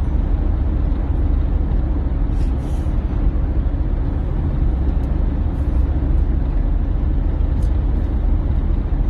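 Steady low rumble of a car's road and engine noise heard inside the cabin.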